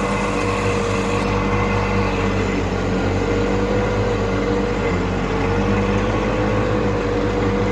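Wheel Horse 520H garden tractor's Onan twin-cylinder engine running steadily while mowing tall grass, with a held tone that wavers slightly in pitch.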